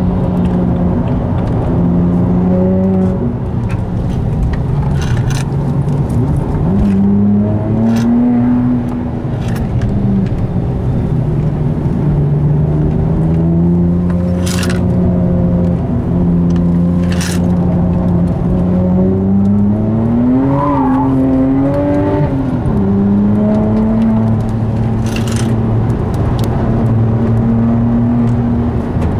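Tuned twin-turbo straight-six of a Devotec-prepared 477 hp BMW 1M heard from inside the cabin while being driven on a circuit, its engine note rising and falling with throttle and gear changes. A few short sharp clicks cut through it.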